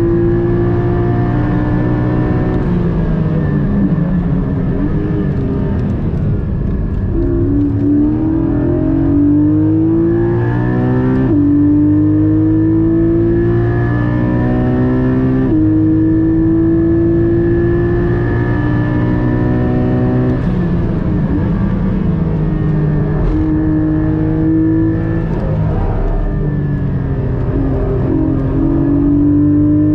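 Porsche 718 Cayman GT4 MR's naturally aspirated 4.0-litre flat-six at full throttle, heard from inside the cabin: the pitch climbs as it pulls through each gear and drops abruptly at each upshift, then falls in steps as the car brakes and downshifts for corners.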